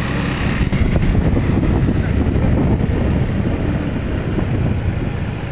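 Steady vehicle engine and road noise with wind buffeting the microphone, as heard riding along in a moving vehicle.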